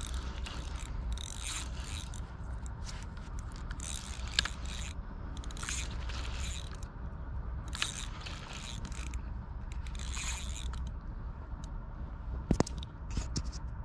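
Fishing reel ratcheting in irregular short bursts, with a few sharp clicks near the end, over a steady low rumble.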